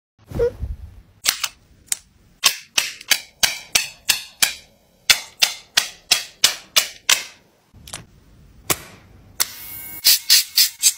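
Pet nail clipper snapping shut on a dog's nails again and again: sharp clicks about three a second in short runs, with a brief hiss shortly before a quicker run of clicks near the end.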